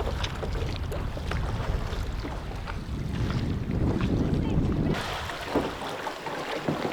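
Wind buffeting the microphone over the sounds of kayak paddling on a river. The wind rumble cuts out about five seconds in, leaving water splashes and small knocks.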